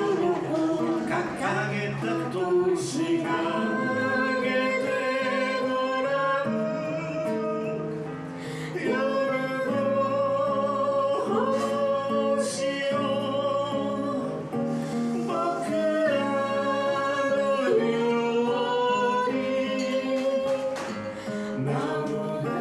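A song sung live to a strummed acoustic guitar, the voice holding long notes over the chords.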